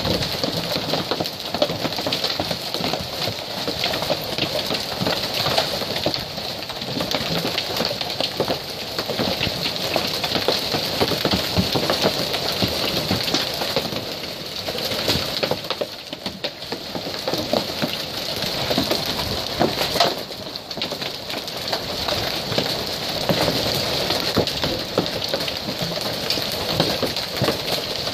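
Hailstones about the size of quarters pelting the pavement, lawn and nearby surfaces: a dense, steady clatter of countless small ticks and knocks.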